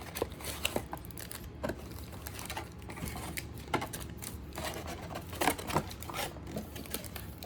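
Trading-card packs and their cardboard hobby box being handled: irregular clicks, taps and light crinkling of foil wrappers.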